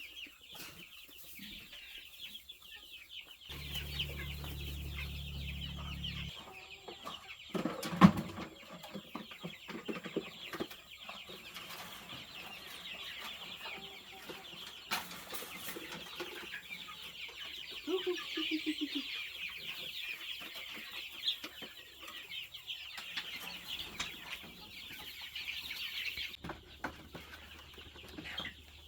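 A flock of chickens clucking over a steady, high-pitched chirring chorus. A low rumble runs for a couple of seconds about four seconds in, and a single sharp knock about eight seconds in is the loudest sound.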